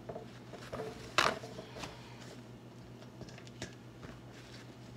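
Kitchen handling sounds as raw fish is patted dry with paper towels and lifted over a colander: soft rustles and scattered light clicks, with one sharp hit about a second in.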